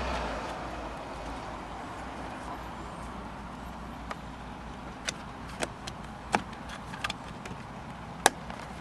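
Plastic door-trim parts clicking and tapping as they are handled and pressed into place, about half a dozen sharp clicks in the second half with the loudest near the end, over a steady low background noise.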